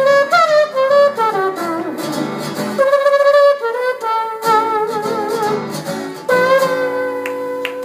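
Wordless vocal trombone imitation carrying the melody over a backing track with guitar. It wavers through a phrase and settles on a long held final note in the last second or so.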